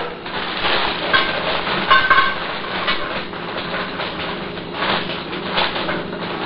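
Frozen cauliflower florets being shaken from a plastic bag into a metal pot: a steady rattle of small hard pieces against the pot, with the bag crinkling and a few short metallic rings in the first two seconds.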